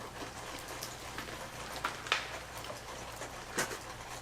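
Snow-laden trees crackling in the background: a few scattered sharp cracks over a faint steady hiss.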